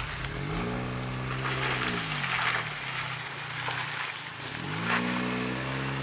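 Chevy Colorado pickup's engine revving up under throttle and easing off, twice, over a steady hiss.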